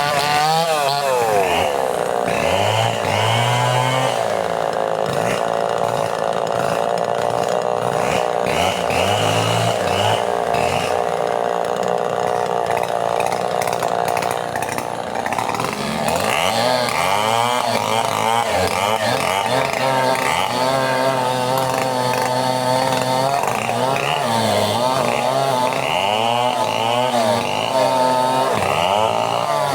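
Two-stroke chainsaw running under load, held at fairly steady high revs for about the first half, then revving up and down again and again through the second half as it cuts wood.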